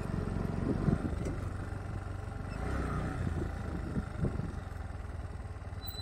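Motorcycle engine running steadily at low revs, with a few brief dull knocks.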